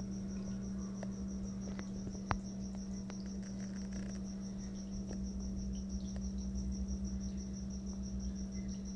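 An insect-like high chirp pulsing evenly several times a second, over a steady low hum, with one sharp click a little over two seconds in.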